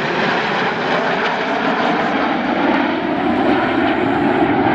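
Formation of PZL-Mielec TS-11 Iskra single-turbojet trainers flying overhead, their jet engines a steady loud rush.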